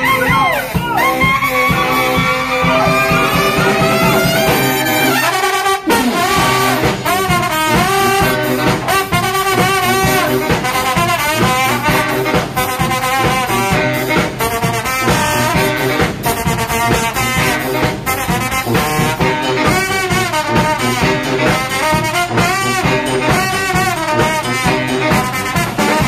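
Background music led by brass instruments with a steady beat, opening with a long rising glide in the first few seconds.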